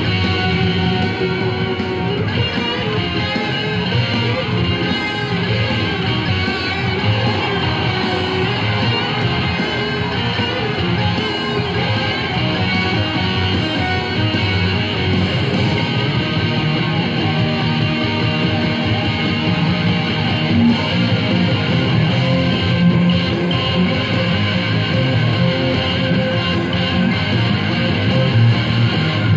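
Electric guitar played with a pick, one continuous riff without pauses.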